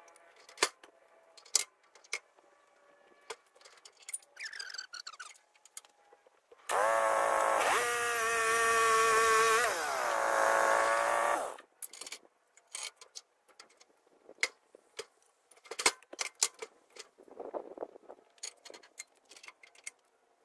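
A sawmill motor runs for about five seconds, its pitch stepping up shortly after it starts and sliding down before it cuts off. Scattered knocks and clicks come before and after it.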